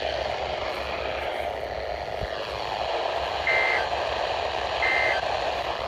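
Weather radio receiver hissing with static in the gap between broadcast messages. Two short, high electronic beeps sound about a second and a half apart in the second half.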